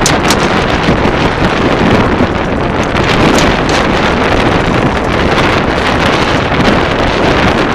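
Steady, loud wind buffeting the microphone, a continuous rush with no breaks.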